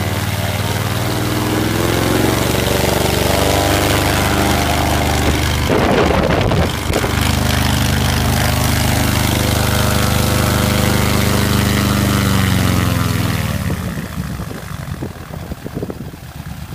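SD-1 Minisport microlight's engine and propeller running steadily at run-up power, then throttled back about thirteen seconds in to a slow, uneven idle.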